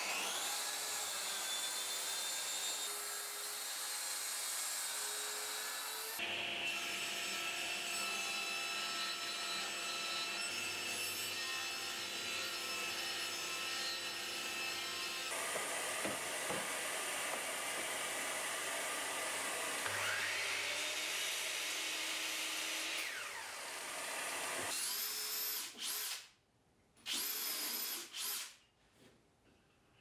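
Workshop power tools in a run of separate cuts. First comes steady motor noise, then a sliding mitre saw spins up, cuts and winds down. Near the end a cordless drill runs in two short bursts, each with a quick rising whine as it drives in.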